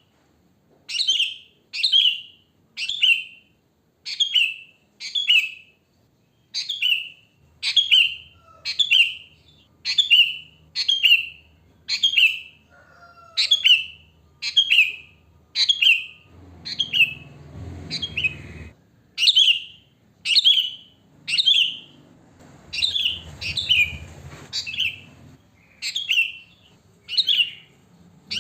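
Sooty-headed bulbul (kutilang) giving a short, loud call over and over, about once a second. A low rumble sounds under the calls twice, about halfway through and again a few seconds later.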